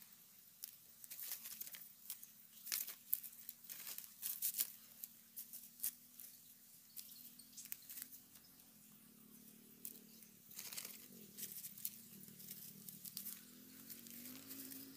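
Irregular rustling and crackling of dry grass and leaves being handled, busiest in the first few seconds and again about ten seconds in, over a faint steady low hum.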